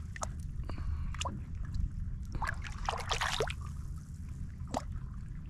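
Small, irregular water splashes and drips at the surface beside a boat, over a low steady rumble.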